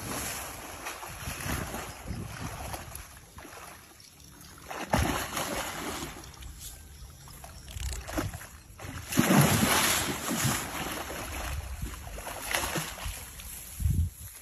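River water sloshing and splashing, with wind buffeting the microphone, in irregular surges.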